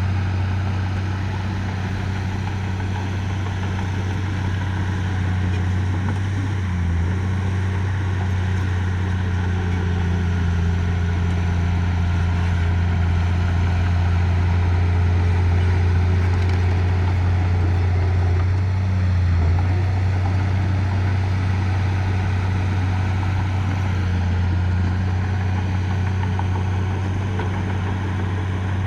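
Diesel engine of earthmoving machinery running steadily at an even speed, with a brief dip in pitch twice.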